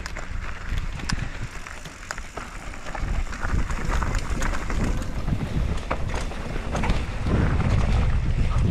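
Downhill mountain bike rolling off and picking up speed on a dirt trail: wind rushing over the microphone and the tyres' rumble grow louder about three seconds in, with scattered clicks and knocks from the bike rattling over rough ground.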